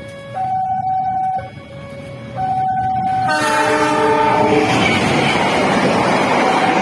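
An alternating two-note warning tone changes pitch about once a second. About three seconds in, a locomotive's multi-note air horn sounds a chord that dips slightly in pitch. A loud, steady rushing of the passing train then takes over.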